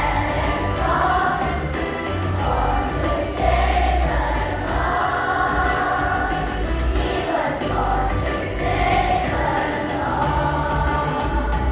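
Group of voices singing a Christmas song with musical accompaniment and a steady bass, with a jingle-bell-like shimmer.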